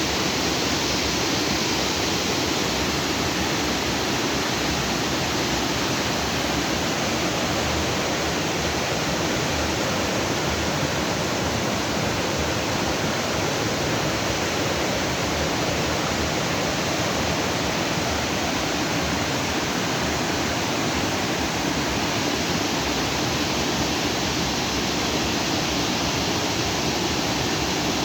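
Water from a lagoon's outflow stream flowing and rushing over rocks, a steady full rushing sound that doesn't change.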